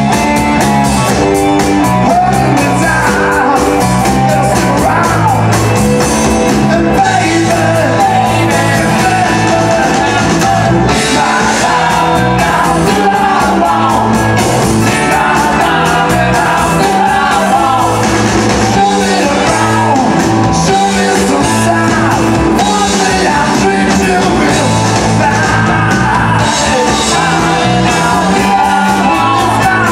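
Live rock band playing electric guitars, bass and drums, with a male lead singer.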